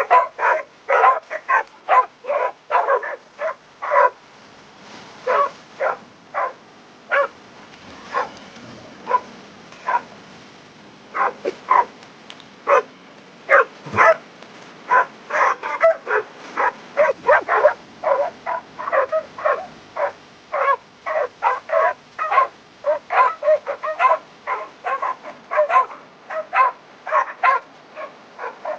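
Dog barking over and over in short, sharp barks, thinning out for a few seconds in the middle before coming quick again.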